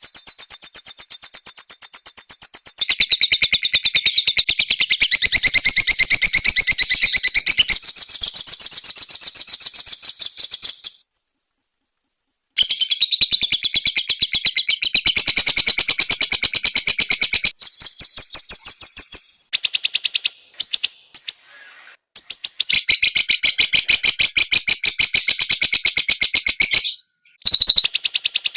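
Songbird singing long runs of fast, evenly repeated high-pitched chirps, broken by a few abrupt short gaps. It is a recorded song played as a masteran tutor track for training cage birds.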